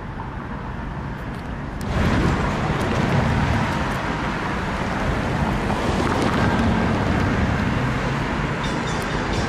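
Road traffic at a grade crossing, the noise rising sharply about two seconds in and staying up, with the low steady engine sound of an approaching diesel road-switcher locomotive underneath.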